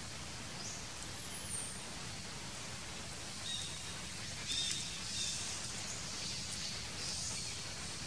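Steady background hiss over a low rumble, with a few faint, brief high chirps about three and a half to five and a half seconds in and again near seven seconds.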